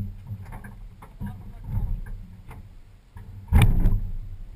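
Knocks and bumps from the BMW E30 drift car's body as the driver climbs in, then a loud slam about three and a half seconds in as the car door shuts, over a low steady hum.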